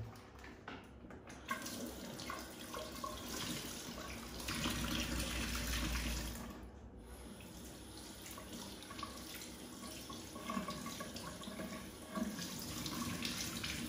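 Kitchen tap running into a stainless steel sink while raw salt-cured beef is rinsed under it by hand, water splashing off the meat. The flow breaks off briefly about halfway through.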